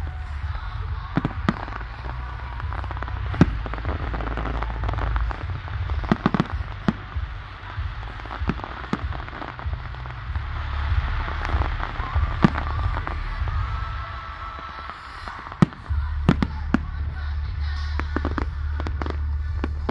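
Fireworks going off: sharp bangs and crackles at irregular intervals over a steady low rumble.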